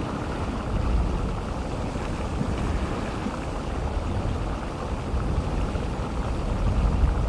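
Geothermal steam vent venting continuously: a steady rushing noise over a deep low rumble that swells about a second in and again near the end.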